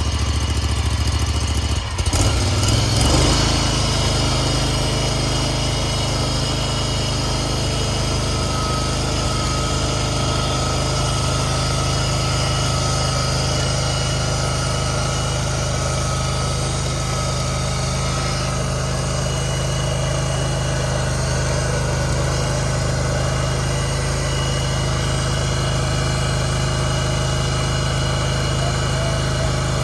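Rayco RG37 stump grinder's engine running steadily. About two seconds in its note changes and rises, then holds steady.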